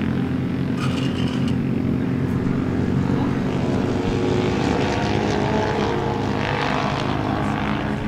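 Air-cooled Suzuki classic racing superbike engine running steadily at idle through its open race exhaust, with the bike on its paddock stand.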